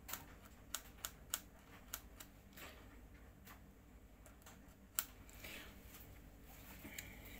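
Sharp knife working a wooden dowel by hand: scattered small clicks and ticks as the blade catches the wood, a sharper click about five seconds in, and a soft scrape just after it.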